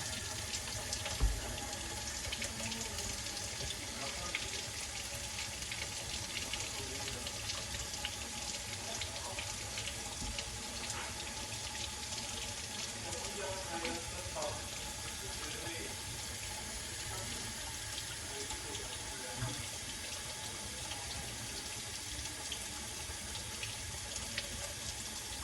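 Kitchen tap running steadily into a sink while rice is rinsed under it, with a short thump about a second in.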